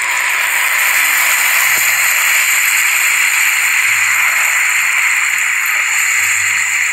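Food sizzling loudly and steadily in hot oil in a pan, just after ingredients are poured in for a stir-fry.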